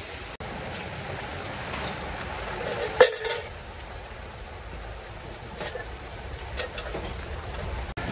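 Steady hiss of rain falling, with one sharp knock about three seconds in and a few lighter knocks later, as stall parts are handled.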